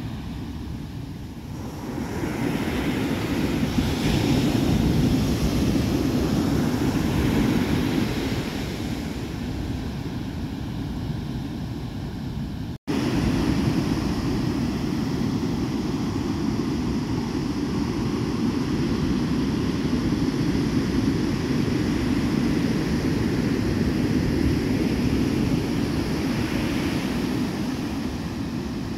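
Ocean surf breaking and washing up a sandy beach, a steady low rush that swells for several seconds early on, with wind rumbling on the microphone. The sound cuts out for an instant about halfway through.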